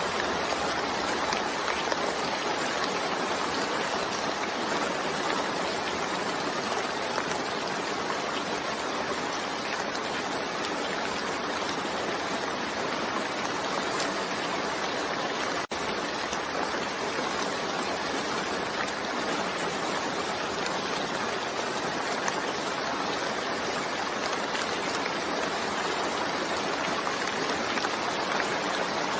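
Steady, even rain hiss with no distinct drops standing out. It cuts out for an instant about halfway through.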